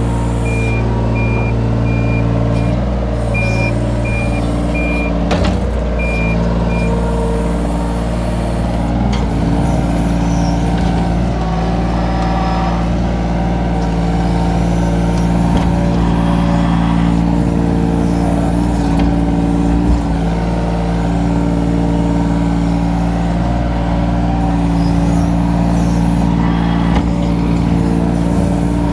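Kobelco SK17SR mini excavator's diesel engine running steadily under hydraulic load while it digs and slews, its pitch shifting as the work changes. A string of short high beeps sounds over the first several seconds.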